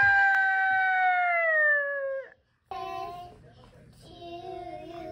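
A young child singing one long, high, loud note that sags in pitch and stops about two seconds in. After a short break, quieter child singing follows.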